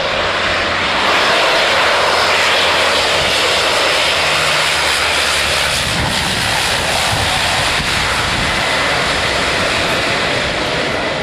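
Canadair firefighting water bomber's propeller engines, loud and steady as the plane passes low overhead, swelling about a second in. The plane is coming down to the sea to scoop water.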